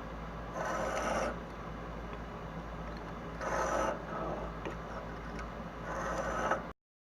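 Steel plane blade, clamped in a rolling honing guide, scraping across a sharpening stone in three separate strokes, each about half a second long, over a steady low hum. The sound cuts off suddenly near the end.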